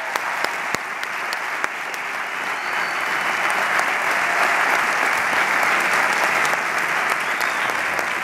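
A large audience applauding, a dense steady clapping that swells a little toward the middle.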